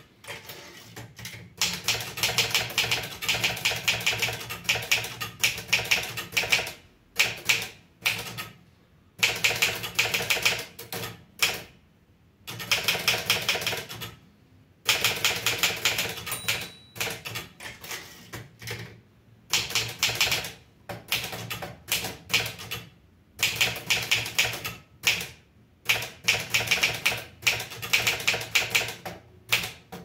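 Olivetti Studio 46 manual typewriter being typed on: quick runs of key strikes lasting from about a second to several seconds, broken by short pauses.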